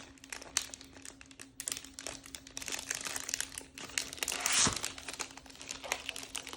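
Plastic packaging crinkling and rustling in short irregular bursts as a keyboard is unwrapped from its plastic seals, with a louder rustle and a soft thump about two-thirds of the way through.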